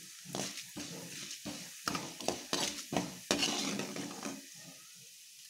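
Seasoning sizzling as it fries in hot oil in a pan, with a spoon scraping and knocking against the pan in quick repeated strokes as it is stirred. The stirring stops about a second before the end, leaving the quieter sizzle.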